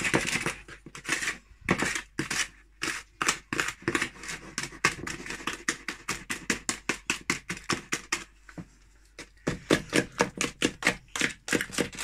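Butter and sugar being creamed by hand in a bowl for buttercream: the utensil clacks against the bowl in fast, even strokes, about four or five a second, stopping for about a second near three-quarters of the way through, then going on.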